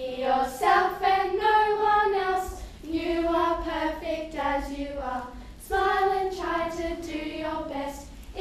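A group of teenage girls singing a song together, unaccompanied, in three held phrases with short breaks between them.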